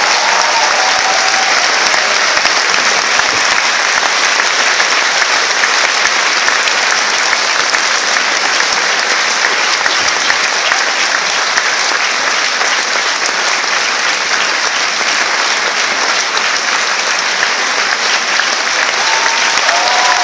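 A large theatre audience clapping in steady, sustained applause for the bows.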